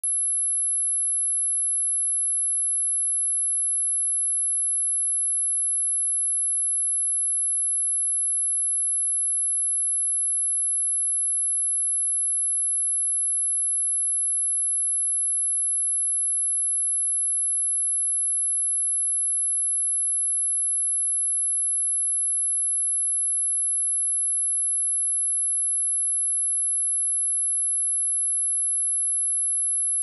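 A steady, high-pitched 11014 Hz sine-wave test tone, one pure constant note that holds unchanged.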